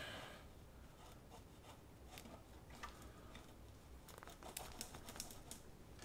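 Faint metal scraping and small clicks as a Racefit Growler X exhaust end can is slid by hand onto the motorcycle's link pipe, with a cluster of quick clicks about four to five and a half seconds in.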